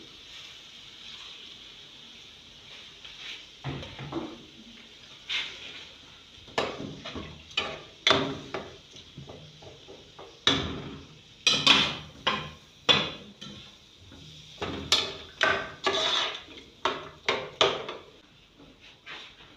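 Metal spoon knocking and scraping against a cooking pot as chicken and carrots in stock are stirred, in irregular clatters that come thickest around the middle, over a faint steady hiss.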